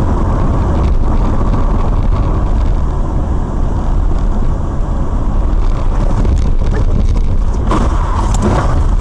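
Car driving on a wet road, heard from inside the cabin through a dashcam: steady engine and tyre noise with a deep rumble. A short burst of louder, rougher noise comes about eight seconds in.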